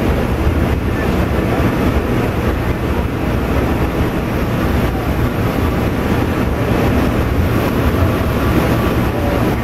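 Steady running noise of a diesel passenger train in motion, heard from inside the cab: engine drone and wheels rumbling on the rails.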